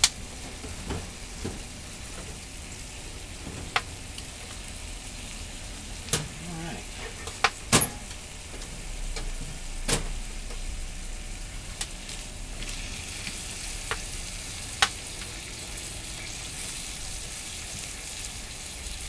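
Dry willow firewood burning in a small DIY wood-burning tent stove: a steady hiss with occasional sharp pops and crackles, not excessive.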